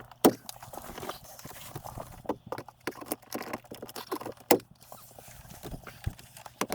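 Irregular knocks and taps from wooden trim being fitted, with two louder sharp strikes, one just after the start and one about four and a half seconds in.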